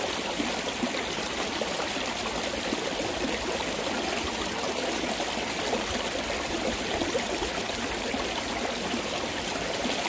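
Steady rushing of a rain-swollen mountain stream flowing over rocks.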